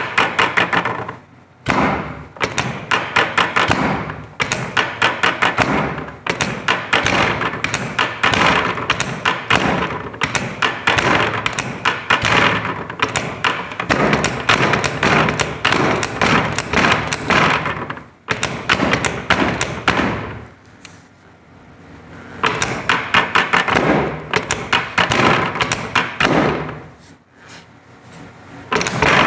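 Rapid runs of thumps and taps, about ten a second, from percussive striking on a patient's body during chiropractic treatment. The strikes pause for a few seconds about two-thirds of the way through and again briefly near the end.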